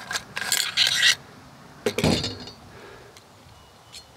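Metal parts of a Beretta A300 Outlander shotgun's action sliding and scraping against each other during field-stripping. About two seconds in there is a clack with a short metallic ring as the receiver is set down on the wooden table, followed by a few faint ticks.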